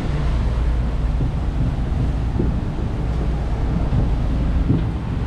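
Steady wind rushing over the microphone on top of the low, even drone of a whale-watching boat's engines while the boat is underway.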